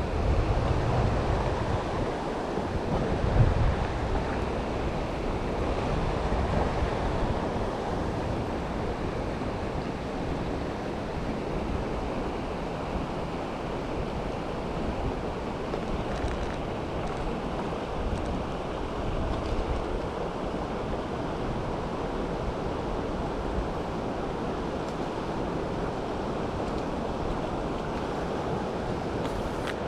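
River water rushing steadily, an even noise with no pitch to it. A few low gusts of wind buffet the microphone in the first few seconds.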